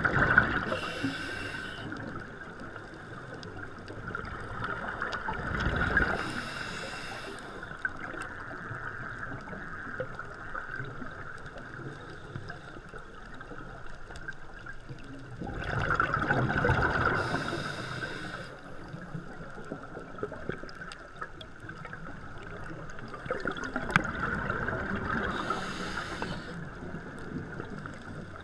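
Scuba diver exhaling through a regulator underwater: bursts of bubbles rush out four times, several seconds apart, over a steady underwater hiss.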